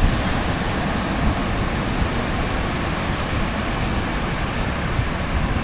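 Steady wind rushing and buffeting the microphone, with ocean surf behind it.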